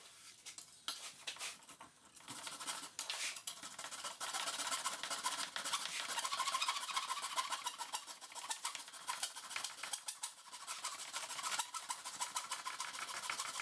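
A metal blade scraping dried glue off the end-grain face of a walnut and maple cutting board: a rapid run of short scratching strokes, starting about two seconds in.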